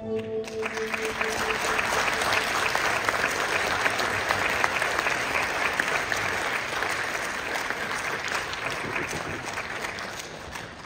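Audience applauding, a dense patter of many hands clapping that dies down near the end. Music fades out in the first second as the applause starts.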